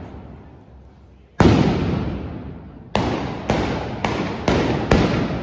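Trabucs (blunderbusses) fired with blank gunpowder charges: one loud blast about a second and a half in, then five more in quick succession about half a second apart, each dying away slowly.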